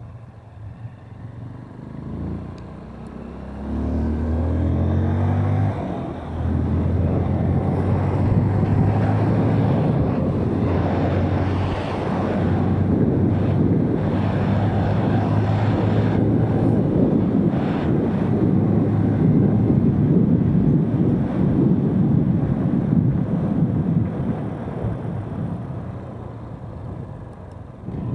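Honda CRF150L's single-cylinder four-stroke engine accelerating, its note rising for a few seconds and dipping briefly about six seconds in, then running steadily at road speed with wind noise on the microphone.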